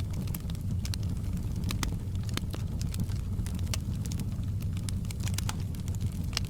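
Wood fire crackling in a fireplace: frequent small irregular pops and snaps over a steady low rumble of the flames.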